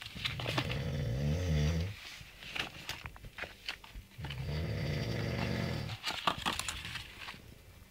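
A ferret snoring: two long snores about four seconds apart, with light clicks and rustles between them.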